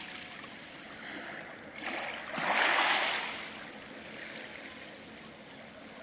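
Small sea wave washing up a pebble beach, swelling about two seconds in and loudest near three seconds, then draining back through the pebbles with a steady hiss.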